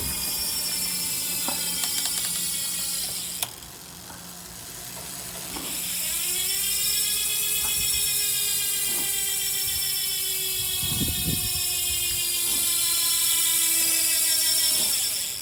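DT Swiss 350 rear hub with a 54-tooth Star Ratchet freewheeling as the rear wheel spins: a loud, even buzz. It runs for about three seconds and stops, then starts again about six seconds in, rising in pitch, easing slowly down as the wheel coasts, and cuts off near the end.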